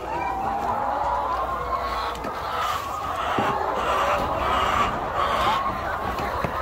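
A flock of laying hens clucking steadily, many calls overlapping, with a few short knocks.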